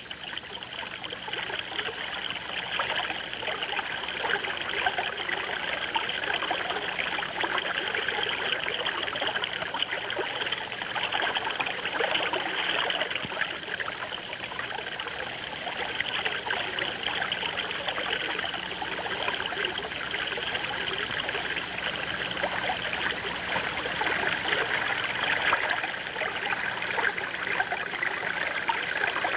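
Shallow river water flowing and trickling over stones, a steady rushing hiss.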